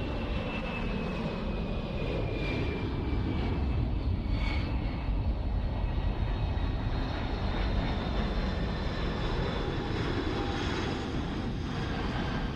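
Boeing 747 airliner on final approach with its landing gear down, its four jet engines running in a heavy low rumble with a high whine that slowly falls in pitch.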